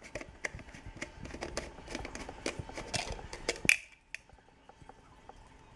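Rapid, irregular clicking and scraping of a Rhinoclemmys wood turtle's claws and shell against a plastic tub, loudest just before four seconds in, then only a few scattered clicks.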